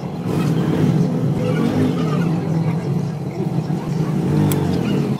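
A motor engine running with a steady low rumble, which cuts off suddenly at the end.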